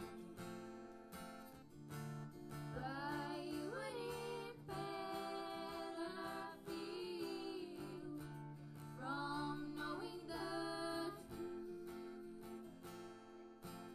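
Acoustic guitar strummed with a voice singing over it, the sung notes held and wavering in two phrases.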